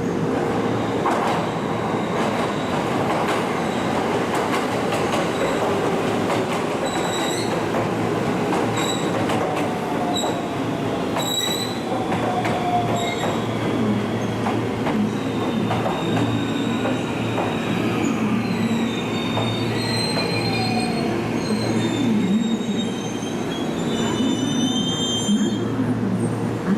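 JR West electric train running through the station, a steady rail rumble with high-pitched wheel squeal setting in about halfway through and a slowly falling whine.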